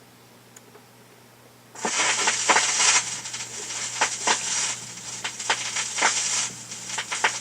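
Seeburg stereo console playing a record's lead-in groove: loud surface hiss and crackle with many clicks and pops starts abruptly about two seconds in, over a steady low amplifier hum, before the music begins.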